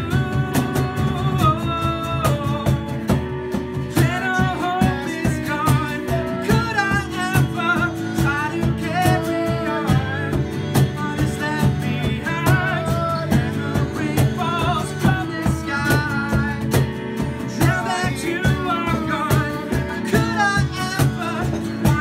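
Live acoustic band playing a song: a man singing over a strummed acoustic guitar, a Korg keyboard and a steady cajon beat.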